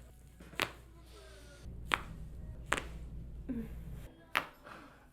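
Four sharp cracks, about a second apart, from a neck being manipulated in chiropractic adjustments: the neck joints popping.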